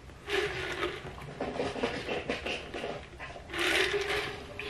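A person drinking from a plastic cup, with gulping and breathing sounds in two stretches: about half a second in and again near the end.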